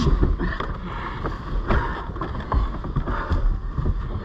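Two grapplers wrestling inside a car's front seats: irregular thumps and knocks of bodies against the seats and door, and rubbing on the upholstery, over a constant low rumble.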